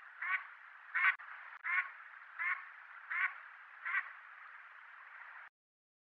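Mallard quacking: a series of six quacks about two-thirds of a second apart, the second the loudest and the rest fading off, over a faint steady hiss.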